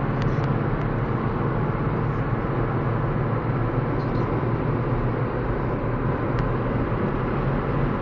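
Steady engine and road noise inside the cabin of a Toyota Celica GT-S, its 1.8-litre four-cylinder running at highway cruising speed with a constant low drone.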